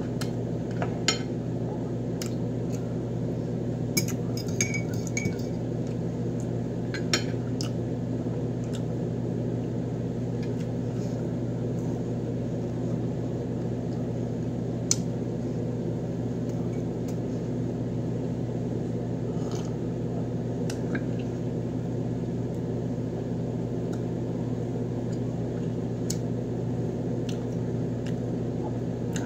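Spoon and fork clinking against a plate now and then while eating, several sharp clicks in the first seven seconds and one more about halfway, over a steady low hum.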